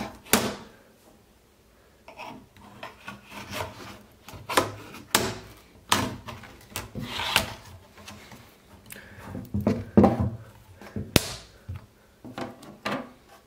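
A small pointed tool clicking and scraping as it prises the front grille off a Dali Katch G2 speaker, with the speaker body shifting and rubbing on a wooden tabletop. Irregular clicks and scrapes, with a sharp click near the end as the grille comes free.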